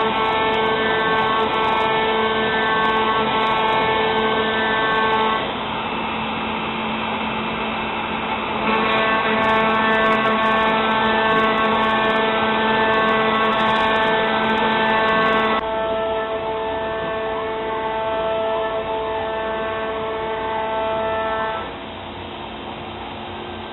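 CNC router spindle running a 1/4-inch solid carbide O-flute spiral bit through 3/4-inch HDPE plastic: a loud, steady whine whose pitch and loudness shift abruptly a few times, and which turns quieter near the end.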